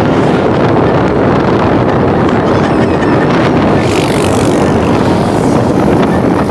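Wind buffeting the microphone on a moving motorcycle, a loud steady rush with the motorcycle's engine running underneath.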